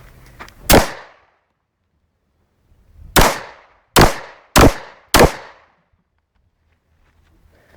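Five gunshots from a firearm: a single shot, then after about two and a half seconds four more in quick succession, roughly two a second, each with a short echoing tail.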